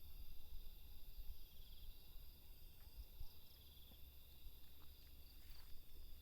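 Night insect chorus, crickets trilling steadily and faintly, over a low rumble of wind or microphone handling.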